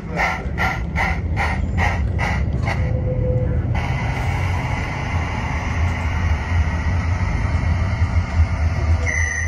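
Sound-fitted 32mm gauge model of the Ffestiniog 0-4-0 'Prince' running with a train. Its sound unit plays steady steam-locomotive chuffs at two to three a second, which stop about three and a half seconds in and give way to a steady hiss over the low rumble of the model on its track. A short high whistle-like tone starts near the end.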